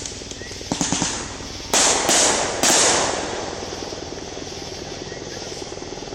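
Fireworks going off: a short crackle about a second in, then three sharp, loud bangs in quick succession, each trailing off.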